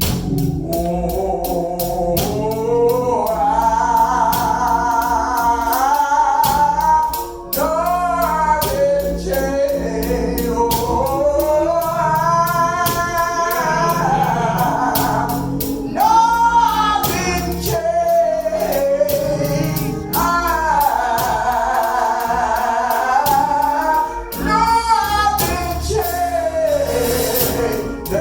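Gospel song with voices singing over a steady beat, with tambourine and organ.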